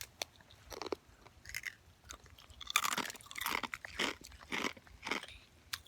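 Ice-coated roselle leaf being bitten and chewed, a run of irregular icy crunches, densest about halfway through.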